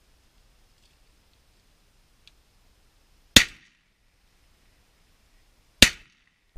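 Two shotgun shots about two and a half seconds apart, each a sharp crack with a short ringing tail.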